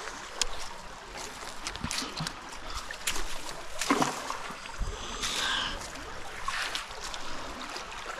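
Neodymium magnet on a rope thrown into a shallow river, hitting the water with a splash about four seconds in, amid rustling and clicking of the rope being handled, over the steady flow of the stream.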